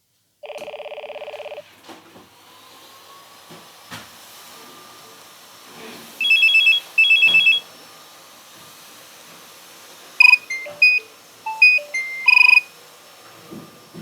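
Nokia 3120 mobile phone playing short ringtone snippets through its small speaker: a buzzing beep near the start, a few soft key clicks, two short warbling trills about six seconds in, then a quick run of electronic tune notes at changing pitches around ten seconds in.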